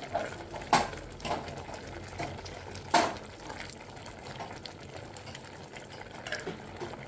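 Cooking-pot sounds: a utensil knocks sharply against the pot twice, first near the start and again about three seconds in, with lighter scattered clicks in between.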